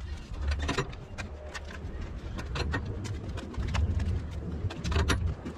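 Metallic clicks and knocks of a long wheel-nut bar wrench being worked on a lorry's wheel nuts, coming irregularly, over a low rumble.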